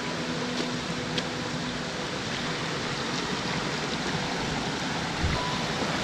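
Steady rushing of river water flowing over rocks.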